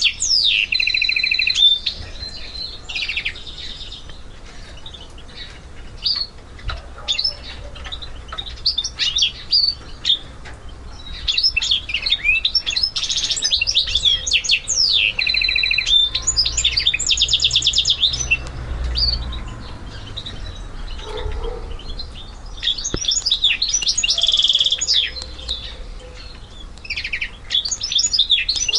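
Goldfinch mule, a goldfinch × canary hybrid, singing: runs of quick twittering notes and fast trills, in phrases broken by short pauses.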